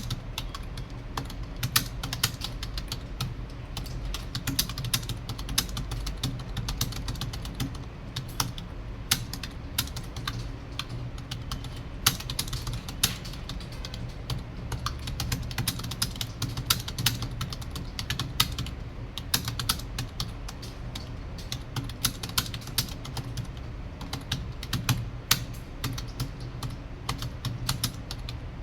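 Fast continuous touch-typing on a computer keyboard, many quick irregular key clicks, with a low steady hum underneath.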